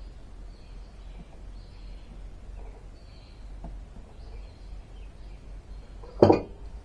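Outdoor background with faint, repeated bird chirps over a low steady hum, and a single sharp knock about six seconds in, the loudest sound.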